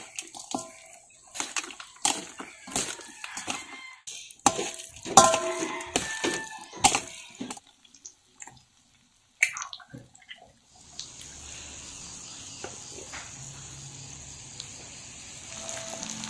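A metal spoon clicks, knocks and scrapes in a stainless steel bowl, with wet squelching, as chopped pork sisig ingredients are mixed with mayonnaise. About eleven seconds in, a steady sizzle begins as the pork sisig fries in oil and butter.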